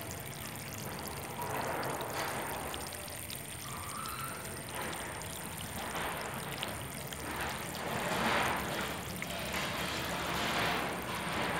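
Amber liquid boiling in a hot frying pan, bubbling and sputtering in swells that rise and fall every second or so and grow louder toward the end.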